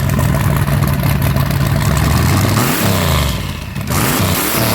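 2007 Jeep Liberty's engine running after its ignition switch actuator repair. It holds a steady speed, then its speed dips and rises twice, about three seconds in and again near the end.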